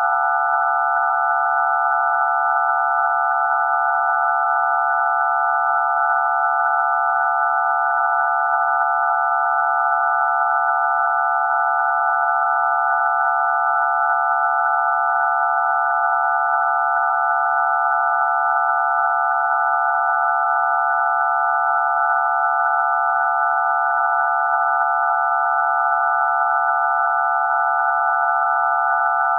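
All ten DTMF telephone keypad tones (digits 0 to 9) mixed into one continuous, very loud chord of steady beeping pitches, without a break.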